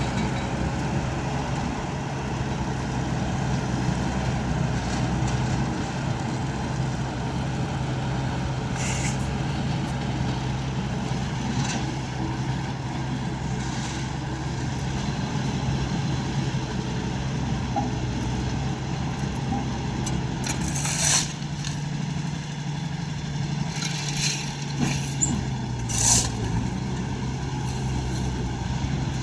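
Road roller engine running steadily at a constant speed, with a few short, sharp hissing bursts over it in the second half.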